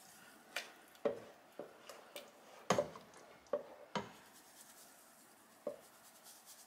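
Wooden spoon stirring cooked crushed strawberries in a stainless steel pot, with short sharp knocks against the pot roughly every half second for about four seconds and one more near the end.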